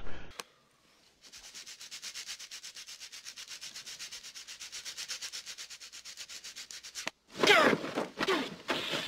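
Rapid, even scratching strokes, many to the second, go on for about six seconds. A louder, harsher rasp follows for a second or two near the end.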